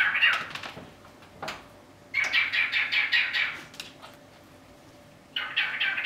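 Cockatiel chattering in three bursts of quick, clipped chirps and squawky noises. The burst in the middle is the longest, a rapid run of notes, and a shorter burst comes near the end.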